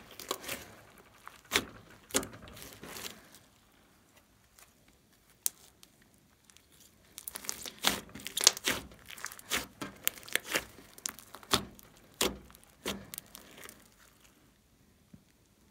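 Slime being squeezed and stretched by hand, giving irregular wet crackles and pops as trapped air squelches out. The pops go quiet for a few seconds early on, then come thick and fast for several seconds before dying away near the end.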